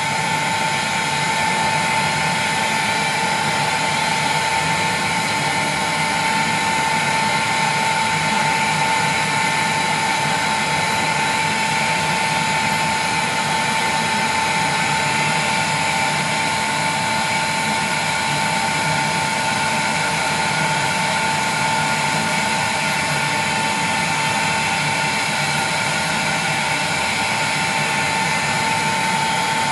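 Electric heat gun running steadily, its fan blowing with a constant whine, as it heats the face of a picture tube to loosen the bonded safety lens.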